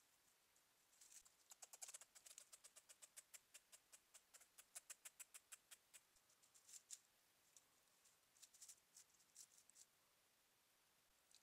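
Faint quick clicks and crackles in dry leaf litter, in runs of about four to five a second, from a gray squirrel foraging close to the trail camera.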